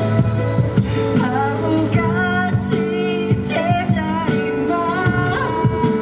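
A man singing live into a handheld microphone over instrumental accompaniment, his voice gliding between sustained notes over steady chords.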